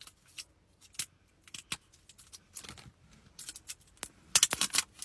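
Toy packaging being opened by hand: scattered crinkles and sharp crackling snaps of wrapping, coming thick and fast near the end.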